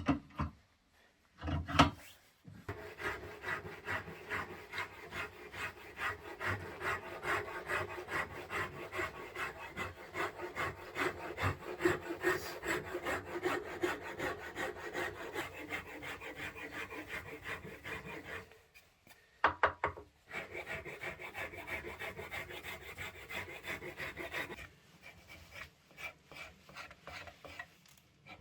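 Wood being worked by hand with an abrasive tool, rasped or filed in quick, even back-and-forth strokes. The strokes stop briefly with a couple of sharp knocks, then start again and grow fainter near the end.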